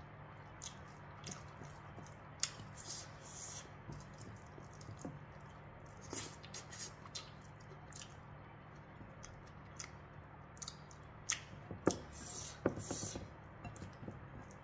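Close-up eating sounds of rice and curried vegetables eaten by hand: scattered soft wet squishes and clicks from fingers mixing the food and from chewing and lip smacks, the sharpest clicks around twelve to thirteen seconds in. A faint steady low hum runs underneath.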